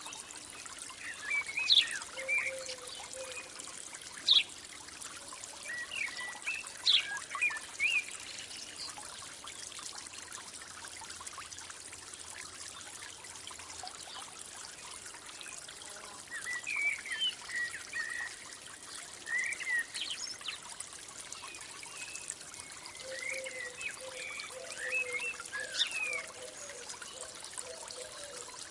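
Steady trickling water with birds calling over it in quick high chirps. The chirps come in two spells, one at the start and another from about the middle to near the end, with a lower warbling call alongside.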